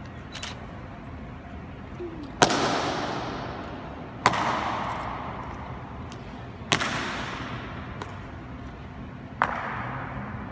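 Four sharp strikes from an honour guard's drill on a marble floor, spaced about two seconds apart, each followed by a long echo that rings out through the hall.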